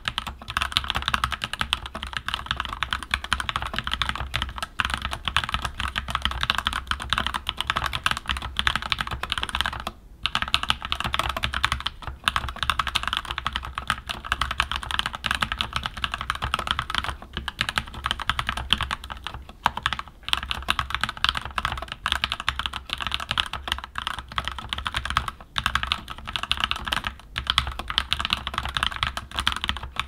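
Fast continuous typing on a Keychron K14 mechanical keyboard with Gateron Red linear switches: a dense stream of keystroke clacks, with a brief pause about ten seconds in.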